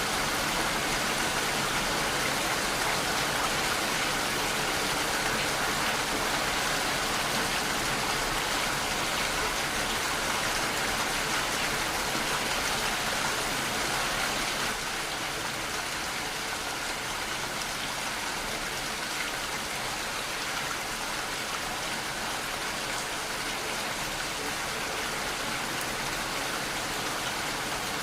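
Steady, heavy rainfall: an even hiss of raindrops with no thunder, dropping slightly in loudness about halfway through.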